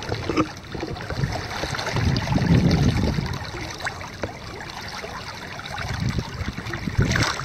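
River water running and sloshing around a hand holding a brown trout in the shallow current, with a sharper splash near the end.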